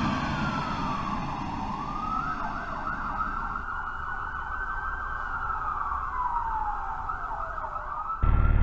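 A siren wailing: its pitch falls, climbs and holds with a fast warble, then slides slowly down again. It cuts off suddenly near the end as loud, deep music starts.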